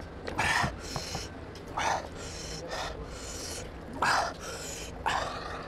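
A man taking four sharp breaths in and out through his open mouth, about one every second or so, as he reacts to the heat of a spicy mutton curry.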